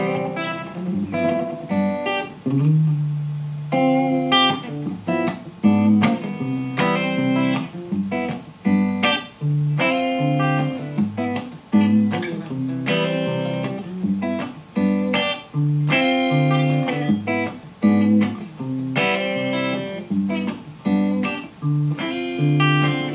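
Instrumental intro of an indie rock band playing live: electric guitar picking a melodic line of quick notes over a moving bass guitar line, with drums.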